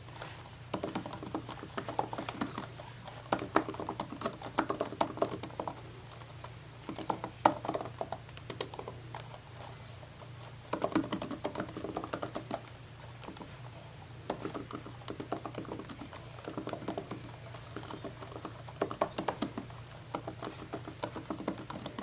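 Typing on an Apple Magic Keyboard for iPad: quick runs of key clicks in bursts with short pauses between them.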